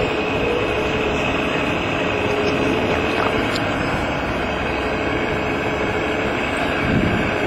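Wedico radio-controlled model CAT 345D excavator running as it digs into the dirt: its hydraulics give a steady whine over a steady rushing noise.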